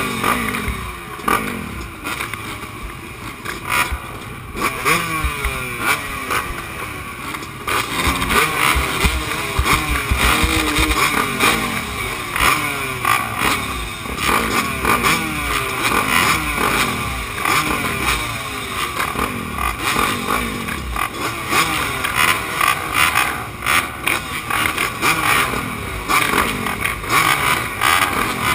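A line of motocross bikes at the start gate, their engines held at idle and revved over and over, several at once, rising and falling in pitch while they wait for the gate to drop.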